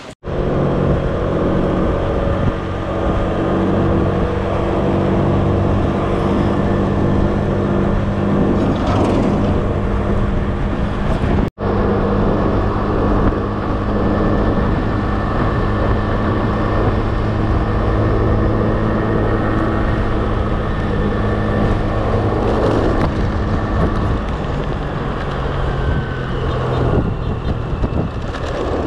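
An engine running steadily: a constant drone that breaks off for an instant at the very start and again about a third of the way in.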